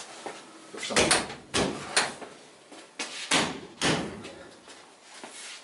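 A 1973 VW bay-window bus being shoved by hand as it sits on jack stands, its body rocking and giving a run of sharp clunks and knocks, about six, some in quick pairs. The shaking is a check that the bus is stable and safe to work under.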